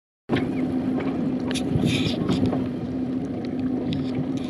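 A boat's engine running with a steady low drone, with wind on the microphone and water splashing in short bursts against the hull.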